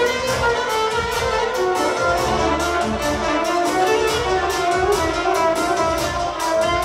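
Instrumental music with a quick, steady beat.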